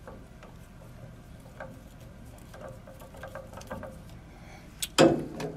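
Light clicks and scrapes of a screwdriver working the retaining screw of a wiring plug on a boiler's gas valve, then one sharp, louder clack near the end.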